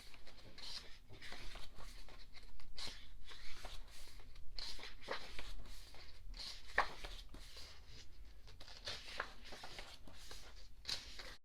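Pages of an album photobook being turned and handled: irregular papery rustles and light taps.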